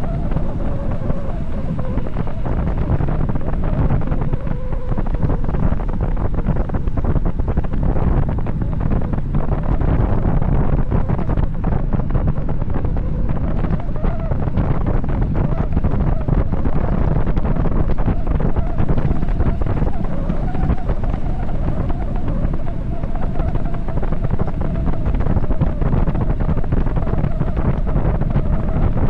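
Wind buffeting the microphone of a bicycle descending at high speed, a loud steady rumble with a faint wavering whine running under it.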